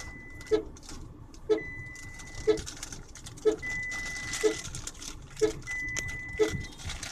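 Tata Altroz key-not-found warning chime: a short beep repeating about once a second, with a higher steady tone sounding for about a second every two seconds. It warns that the smart key is no longer detected inside the car while it is running.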